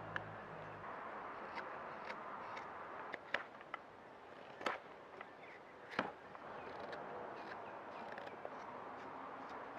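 A carving tool cutting into green wood while a spoon is roughed out: a few crisp, separate strokes spaced roughly a second or more apart, the loudest near the middle.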